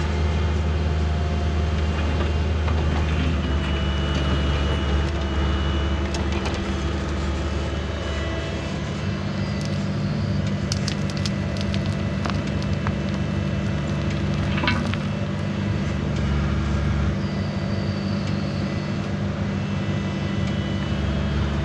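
A heavy machine's engine running steadily while backfilling, with a few sharp knocks and clatters midway.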